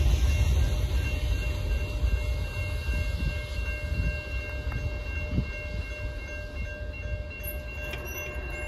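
Low rumble of an intermodal freight train fading steadily as it moves away, with the level-crossing bell ringing steadily over it.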